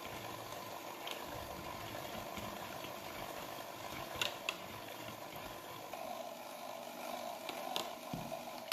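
Electric hand mixer running steadily, its wire beaters whipping vegetable cream in a plastic bowl, with a few short sharp clicks about a second in, around four seconds in and near the end.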